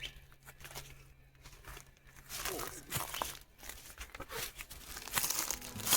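Rustling and crinkling handling noises with scattered sharp clicks, busier in the second half, over a faint steady low hum.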